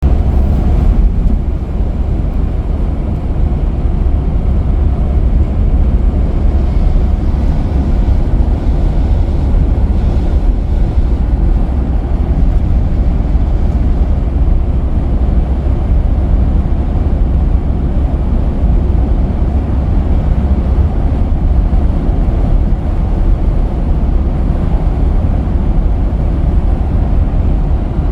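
Steady low rumble of a Mercedes Vito W638 van on the move: road and wind noise, even throughout, starting suddenly.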